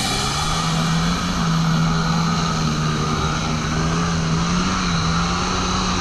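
Kawasaki SXR 800 stand-up jet ski's two-stroke twin engine running at a fairly steady throttle, its note wavering slightly in pitch.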